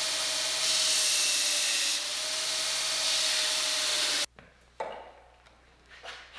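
2x48 belt grinder with a 2 hp three-phase motor running with a steady tone while steel stock is ground on the belt, a hiss of grinding that swells and eases. The sound cuts off abruptly about four seconds in, followed by a couple of light knocks.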